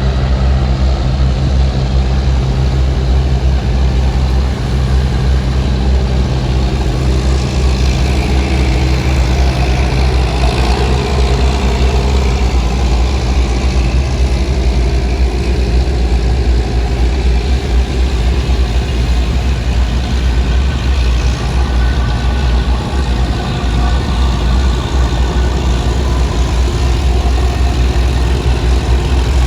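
Diesel engine of a bottom-trawl fishing boat running steadily at a low, even speed, with a deep, constant hum.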